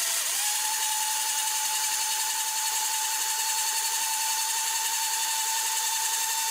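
Electric countertop blender running, blending chopped cabbage with water into juice. Its motor whine steps up in pitch shortly after the start, then holds steady.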